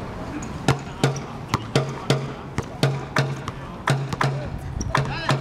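A basketball being dribbled on an outdoor hard court: a steady run of bounces, about three a second, each leaving a short low ring.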